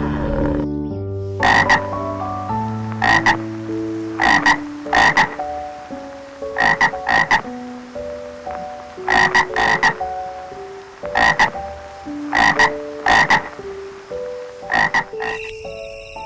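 An animal giving short, sharp calls, mostly in pairs, about a dozen times, over soft background music.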